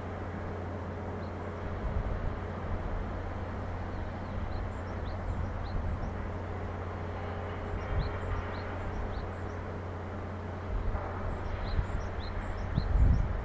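Outdoor ambience: a steady low hum of distant traffic and machinery, with small birds chirping in short, high calls in several brief clusters. Wind buffets the microphone near the end.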